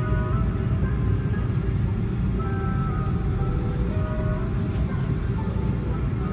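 Steady low rumble of an Airbus A330-300 taxiing, its engines and the airframe heard from inside the passenger cabin. Short, faint tones come and go above the rumble.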